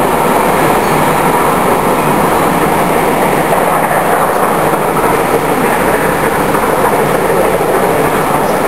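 Steam-hauled train rolling past on the rails, a loud, steady rumble of wheels and track without separate beats.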